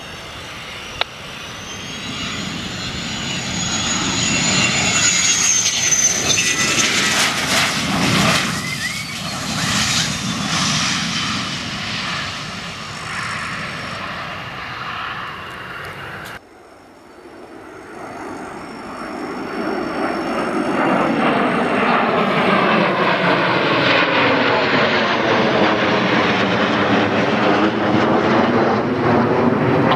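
Fighter jet engine noise, F-16s passing close: a loud rumble with a high whine gliding above it swells and fades, then cuts off abruptly about 16 seconds in. A second jet's noise then builds to a steady loud level with the swirling, phasing sweep of an aircraft passing near overhead.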